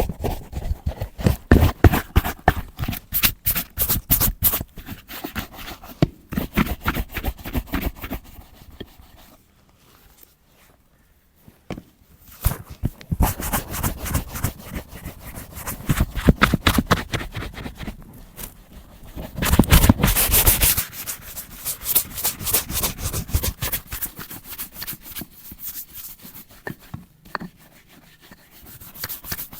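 Brush scrubbing a leather boot in quick back-and-forth strokes. The scrubbing stops for a couple of seconds about ten seconds in, and a dense stretch of scrubbing comes about twenty seconds in.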